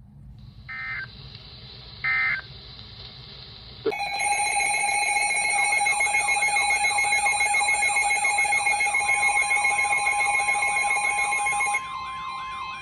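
Emergency alert tones: three short digital data bursts, typical of the end-of-message code that closes a weather radio warning. About four seconds in, a loud electronic alert starts, with steady high tones and a warbling siren-like sweep. A steady single tone joins it, and near the end it drops to a quieter warble.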